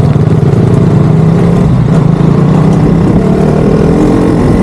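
Motorcycle engine running steadily while being ridden along a gravel track.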